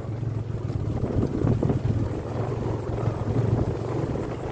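Motorcycle engine running at low speed with a steady low throb.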